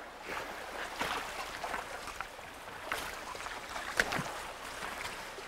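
Hikers' boots splashing through shallow water over rocks, with uneven footsteps about once a second.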